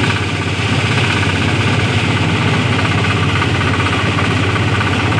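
Motorised rice thresher running steadily, its engine driving the threshing drum as rice stalks are fed in.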